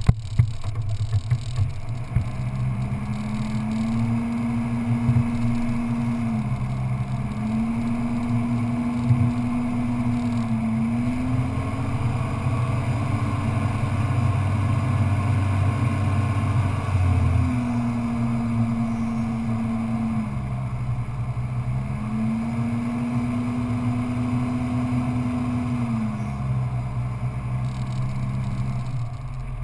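Off-road vehicle engine running under way on sand, its note climbing, holding and dropping again several times as the throttle varies, over a steady rush of wind and tyres. A few sharp knocks from bumps near the start.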